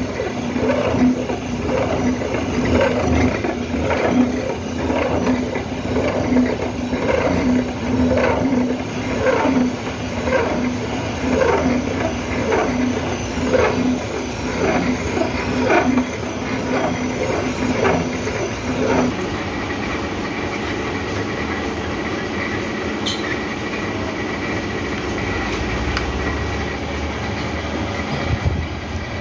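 Horizontal milling machine's many-toothed disc cutter cutting a slot for jaw-clutch teeth in a steel blank: a steady hum with a regular knock about every two-thirds of a second. About two-thirds of the way through, the knocking stops and the machine runs on with just a steady hum.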